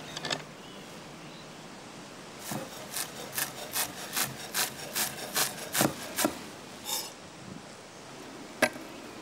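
Kitchen knife chopping a bunch of chives on a wooden cutting board: a steady run of about ten knocks, roughly two and a half a second, then a couple of single cuts.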